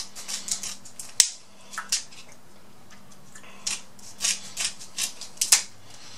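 Atlantic red crab leg shell being snipped with kitchen shears and cracked: a scattered series of short, sharp crunches and snaps, the loudest about a second in and a quicker run of them a few seconds later.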